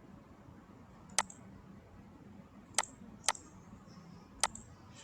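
Four sharp computer mouse clicks at uneven intervals, two of them close together about three seconds in, over a faint steady low hum.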